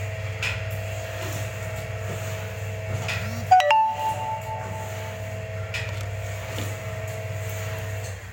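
Electric motor and gearbox of a semi-automatic cup screen-printing machine running steadily with a low hum and a whine, with a light click about every two and a half seconds. About halfway through, a metal part clanks and rings briefly. The motor cuts off at the end.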